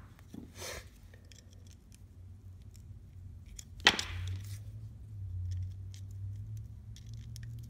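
Light handling clicks of a screwdriver on a metal workbench, with one sharp tap about four seconds in, followed by a faint low steady hum.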